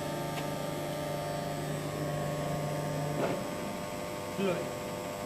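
Huron MU5 knee-type milling machine's electric motors humming steadily as it runs. About three seconds in, one of the hum tones stops with a click, as if a motor is switched off.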